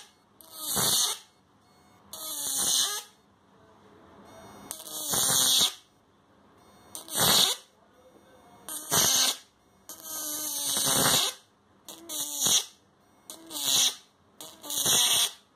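Electric shock fishing machine's output leads arcing against a metal plate, heard as a crackling, buzzing spark burst about every second and a half, about nine in all. Each discharge carries a buzzing tone that falls in pitch while it lasts, which shows the machine's high-voltage output is firing.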